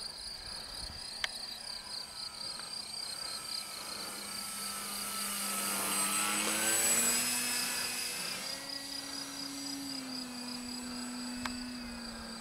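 Electric motor and propeller of a Multiplex Pilatus PC-6 Turbo Porter RC model flying past, growing louder to a peak about seven seconds in and dropping in pitch as it passes, then fading a little. Crickets chirp steadily throughout.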